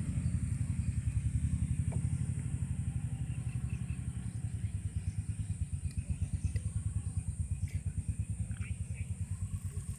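Small engine running steadily with a fast, even putter, and a thin, steady high whine above it.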